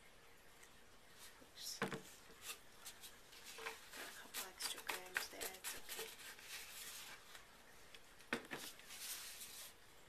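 Faint handling noises of a plastic jug and gloved hands: scattered light knocks, clicks and rustling, with the sharpest knock about two seconds in and another near the end.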